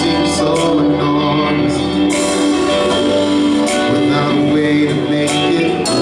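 Live band playing the slow intro of a soul song: held chords, with a cymbal-like hit about every second and a half.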